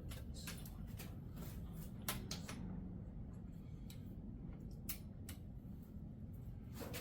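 Click-type torque wrench ratcheting as a small-block Chevy cylinder head bolt is drawn down, giving short, irregularly spaced clicks over a low steady background noise.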